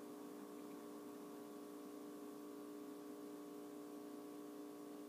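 Quiet room tone: a steady hum of several held tones with faint hiss beneath, unchanging throughout.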